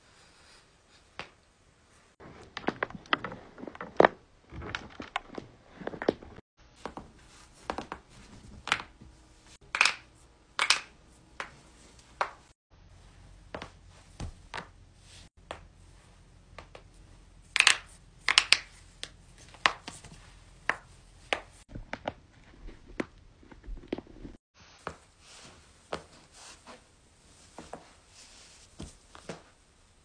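Self-cracked human joints: a long series of sharp cracks and pops, often several in quick succession, from fingers, jaw or neck and back being pushed until they give. The loudest cluster comes a little past the middle, and the cracking is broken by a few brief dead-silent gaps.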